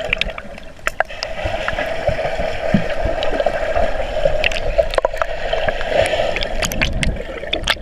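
Underwater sound through a submerged action camera in a swimming pool: a steady muffled rushing and bubbling of water, with scattered clicks and knocks as swimmers kick and move past.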